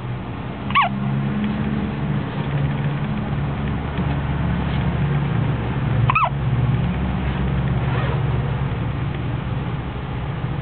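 A newborn baby hiccuping: two short, sharp hics about five seconds apart, each falling quickly in pitch, with a fainter one about two seconds after the second. A steady low hum runs underneath.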